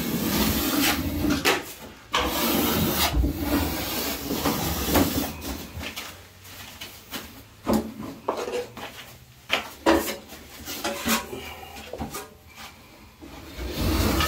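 Hand tools scraping and rubbing against a plasterboard ceiling, in irregular strokes with scattered short knocks and taps.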